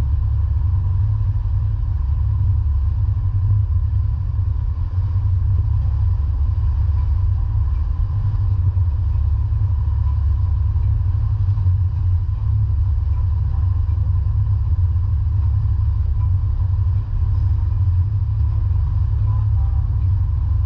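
Steady, loud low rumble of a running vehicle, with a faint steady whine above it.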